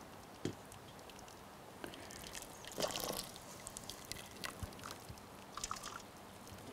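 Boiling water poured in a thin stream into a stainless steel pot over beaver tails to scald them. The trickling and splashing is faint, with a few brief louder clicks and knocks, the biggest about half a second and three seconds in.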